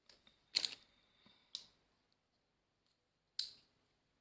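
A few short, sharp plastic clicks and taps from handling makeup items such as a brush and eyeshadow palette: the loudest about half a second in, then one near a second and a half and another near three and a half seconds.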